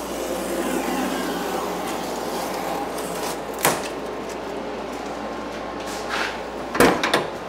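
Masking tape being peeled off a car's painted door sill, a tearing rustle over the first few seconds. Sharp knocks follow, one about halfway through and a louder cluster near the end.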